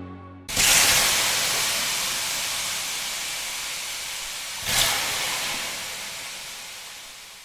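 Loud hissing rush of noise that starts suddenly, swells again about halfway through, and slowly fades away.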